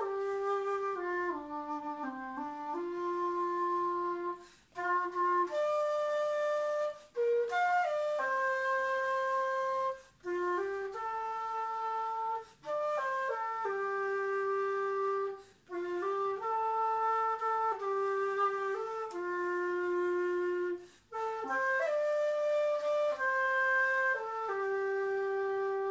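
Solo dongxiao, an end-blown bamboo flute in F, playing a slow melody in held notes. Short pauses between phrases break it every few seconds.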